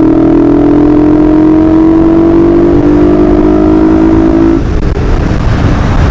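Motorcycle engine running under steady acceleration, its note rising slowly, until the throttle is closed about four and a half seconds in and the engine note falls away into a rough rush of wind and road noise.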